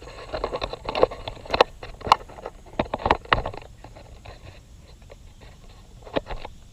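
Handling noise of a hand-held camera being set down: a cluster of knocks, clicks and scrapes over the first three and a half seconds, then a couple more clicks near the end.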